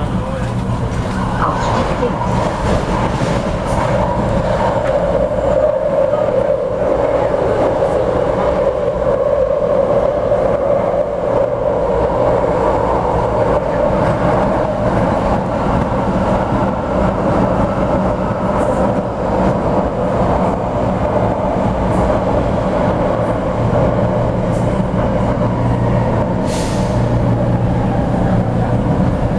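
Vienna U-Bahn metro train running, heard from inside the carriage: a steady loud rumble of wheels on rails with a low hum from the train's motors.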